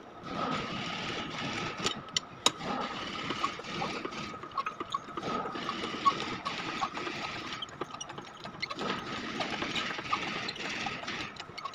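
A machine running steadily with a thin, high, steady whine over it, broken by scattered sharp clicks.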